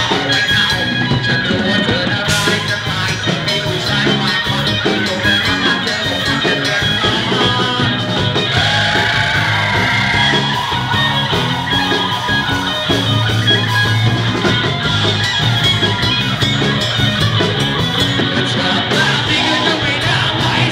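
Loud rock music from a live band, with singing.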